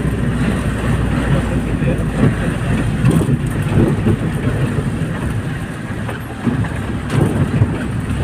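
Engine and road rumble inside a moving vehicle's cabin, a steady low drone with uneven jolts.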